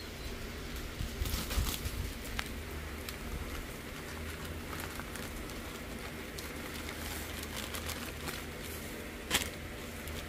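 Plastic tortilla bag rustling and crinkling as it is worked open and tortillas are pulled out, with one sharp click a little over nine seconds in, over a steady low hum.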